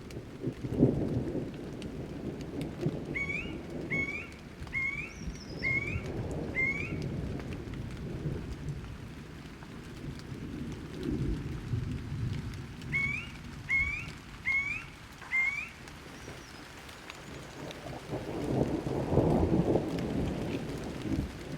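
Thunderstorm: steady rain with rolling thunder that swells and fades several times, loudest near the end. Over it a bird calls a run of short rising whistled notes, about one a second or a little faster, in two bursts of four or five.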